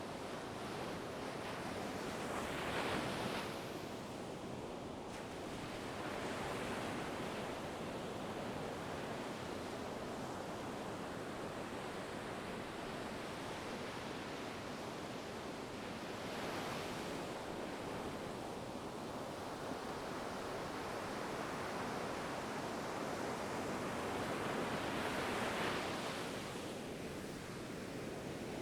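Ocean surf: a steady wash of waves with four slow surges as swells break, about three seconds in, a few seconds later, near the middle and near the end.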